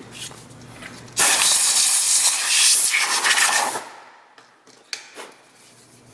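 Compressed-air blow gun hissing for about two and a half seconds, blowing milling chips off the work in the mill vise. It cuts in suddenly and tails off. A few light knocks follow.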